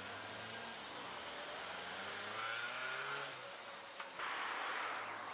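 Engine of a military off-road vehicle accelerating as it drives past, its pitch rising over the first three seconds or so.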